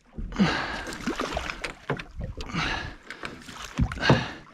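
Water splashing at a boat's side as a large snapper thrashes at the surface and is scooped into a landing net, with scattered knocks.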